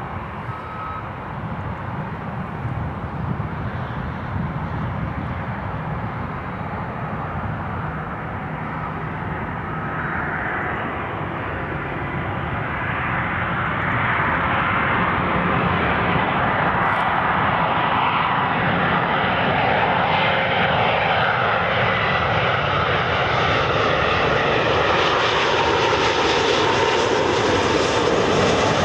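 Boeing 777 twin-engine jet airliner on final approach to land, its engine noise growing steadily louder and brighter as it draws closer.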